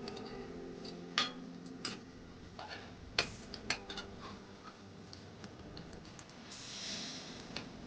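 Scattered sharp clicks and taps of kitchen utensils, the loudest about a second in and twice more around three and a half seconds in, with a short hiss near the end.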